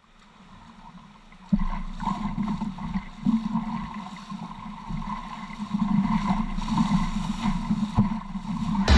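Rushing river rapids around a wooden dugout canoe as it is paddled through white water, with a few sharp knocks. The water noise jumps up suddenly about a second and a half in and grows louder toward the end.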